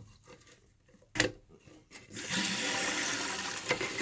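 A sharp click about a second in, then toilet tank water starting to run steadily about two seconds in as the cistern refills through the ball cock fill valve.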